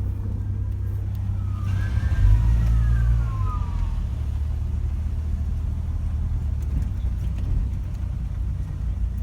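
A motor vehicle's engine running steadily, swelling slightly about two seconds in. Over it, a tone falls in pitch for about two seconds.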